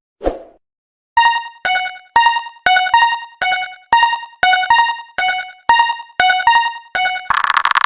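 Japanese railroad crossing alarm sound effect: an electronic bell ringing about twice a second, alternating between two pitches. A short swish comes just before it, and near the end it gives way to a dense buzzing tone.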